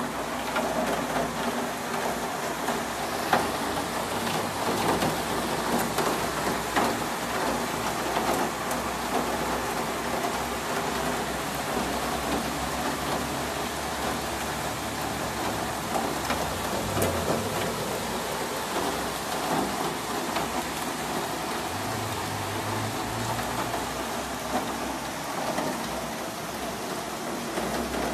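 Steady heavy rain falling outside an open window, with scattered drops tapping on nearby surfaces.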